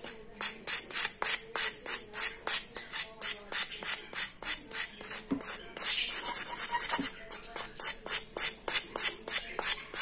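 Cuttlebone scraped with a metal fork, a fast, even run of rasping strokes, about four a second, grating the bone into powder.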